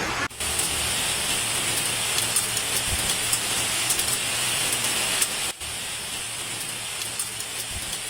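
Steady, hissing rush of storm noise: heavy rain and wind, with two brief dropouts where one clip cuts to the next, a fraction of a second in and about five and a half seconds in.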